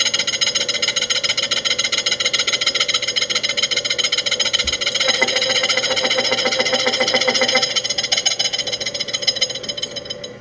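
A 5-inch, 3/32-inch-thick slitting saw on the vertical head of a Trans World Steel VHM-728 mill, turning at 397 RPM and fed by hand, chattering loudly through a light slitting cut; it makes all kinds of noise. The chatter fades away near the end as the cutter comes out of the work.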